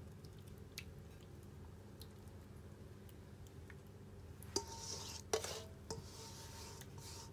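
Faint wet squishing and dripping as thinned marinade is poured and scraped from a stainless-steel bowl over fish in a baking dish. In the second half the sauce slides out with a soft hiss, and the metal bowl clinks twice against the dish.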